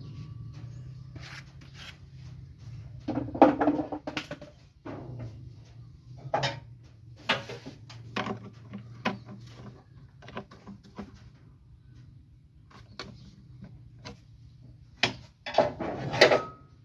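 Irregular knocks and clatter, like hand tools and metal parts being picked up and set down during work on a car, with a faint low steady hum underneath.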